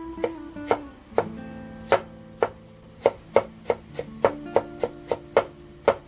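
Kitchen knife chopping ginger on a wooden cutting board: sharp knocks in an uneven rhythm, about two a second at first and quickening to about three a second in the second half. Light plucked-guitar music plays underneath.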